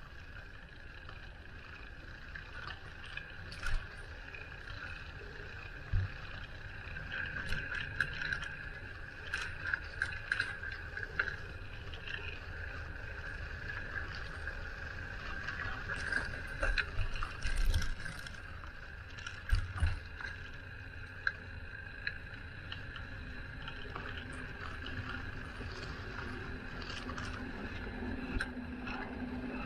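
Bicycle riding noise picked up by the rider's camera: a steady tyre-and-drivetrain hum with wind buffeting the microphone, small rattles and occasional low thumps. A low steady drone comes in near the end.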